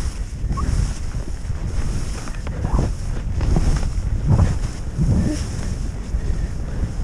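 Wind rumbling on an action camera's microphone during a fast ski descent, with skis hissing through fresh snow and a few brief swishes as they turn.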